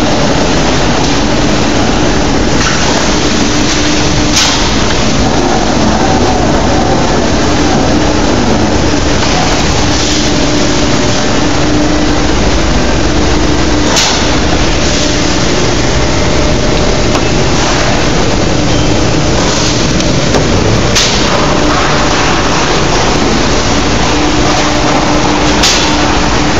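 Steady drone of industrial machinery with a constant low hum tone, broken by a few sharp clicks about 4, 14, 21 and 26 seconds in.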